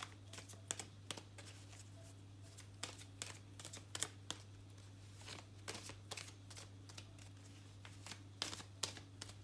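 Tarot cards being handled on a table: a run of soft, irregular clicks and light slaps, over a steady low electrical hum.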